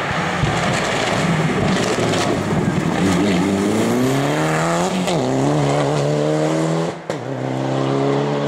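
Mitsubishi Lancer Evolution rally car's turbocharged four-cylinder accelerating hard past, revs climbing through each gear with quick upshifts about five and seven seconds in.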